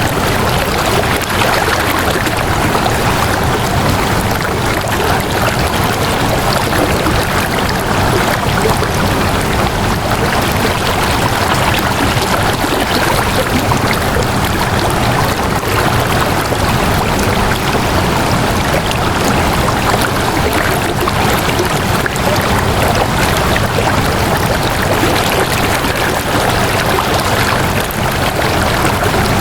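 Flowing water running steadily, like a stream, at an even level throughout.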